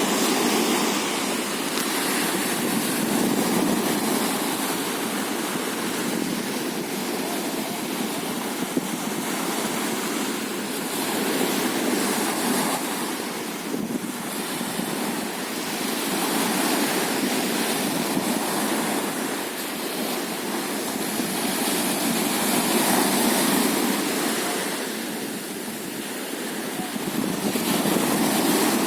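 Sea surf washing onto a sandy beach, a continuous rush that swells and fades every several seconds as waves come in.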